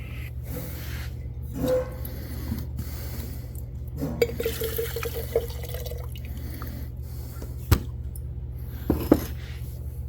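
Fuel pouring and dripping from an opened carburetor, with gurgling about four seconds in and a couple of sharp metallic clicks near the end, over a steady low hum.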